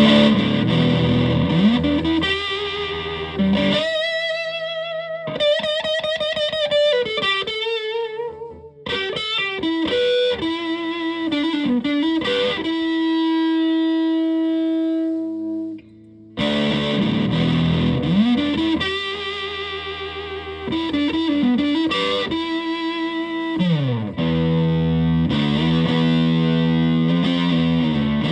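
Electric guitar with humbucker pickups played through a heavily modified Buzzaround fuzz pedal: a distorted lead phrase with string bends and vibrato and a long held note. The playing stops briefly about sixteen seconds in, then the phrase starts again with bends.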